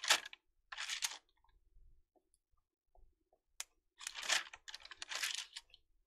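Pencil strokes scratching across thin tracing paper on a light pad: four short scratchy strokes, two near the start and two near the end, with a single sharp tick of the lead in between.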